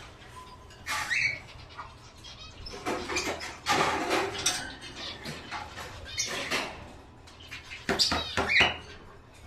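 Small pet birds in a cage chirping in short, quick calls, with clicks in between; the calls come in clusters, the busiest in the middle and again near the end.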